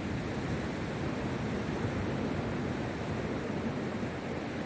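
Steady wash of sea surf on the beach, with some wind on the microphone.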